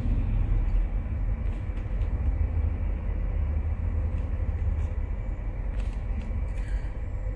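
Steady low rumble heard inside a Hyundai i30's cabin, from the car's engine and running gear, with a few faint clicks.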